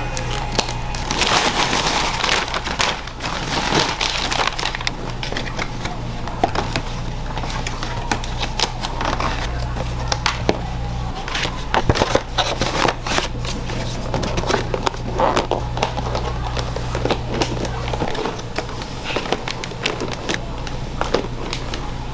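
Fried-chicken shop kitchen at work: irregular clicks, crackling and rustling over a steady low hum of equipment.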